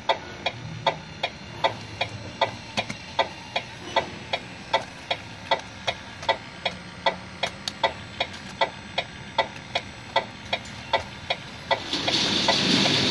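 Scale RC hydraulic excavator tracking up a trailer ramp, with steady, even mechanical ticking about three times a second. A louder hiss comes in about a second before the end.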